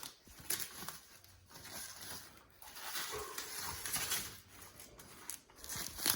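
Irregular rustling and light clicking of a window blind being handled and its packing material pulled off.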